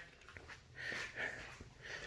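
A man's faint breath, a brief soft hiss about a second in.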